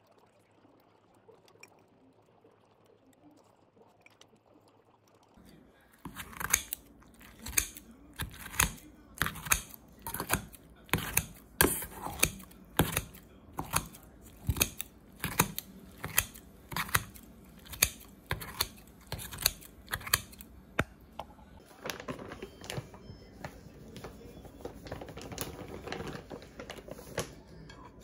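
A kitchen knife chopping on a cutting board: after about six seconds of near silence, steady even strokes a little under two a second, then from about 22 seconds faster, lighter cuts.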